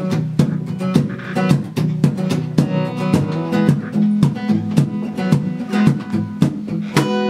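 Acoustic guitar playing the instrumental intro of a country song, with sharp strokes marking a steady beat about two to three times a second.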